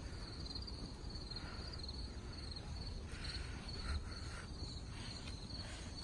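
Faint, steady chirping of crickets, a continuous high pulsing trill.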